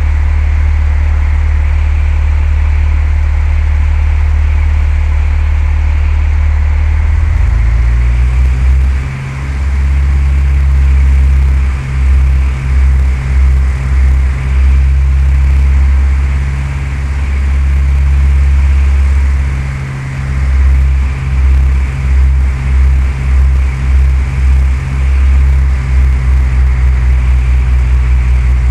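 Cessna 172's four-cylinder piston engine and propeller droning steadily. About seven seconds in, the engine note steps up in pitch as power changes. After that the sound swells and dips over and over, more quickly near the end.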